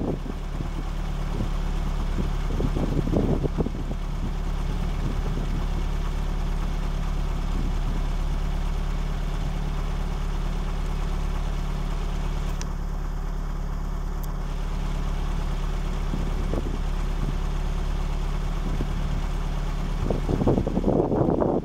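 Safari vehicle's engine running steadily at low revs, a constant low hum, as the vehicle backs slowly away from an advancing elephant. There are louder, rougher stretches about three seconds in and again near the end.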